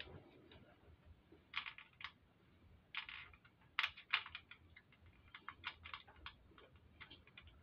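Irregular small clicks and taps of magnet pieces and metal tappets being handled and snapping together in a motorcycle engine's cam chest, a few sharper clicks in the first half and a quick run of lighter ones in the middle.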